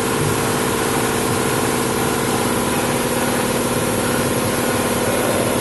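An engine running steadily at idle, a constant hum with several steady tones and no change in speed.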